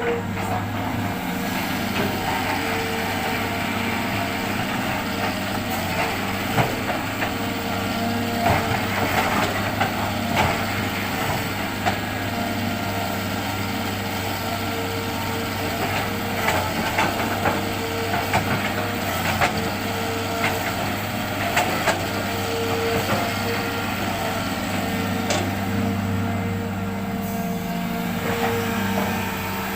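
Hitachi excavator's diesel engine running steadily while it loads sand, with scattered knocks and clatter throughout.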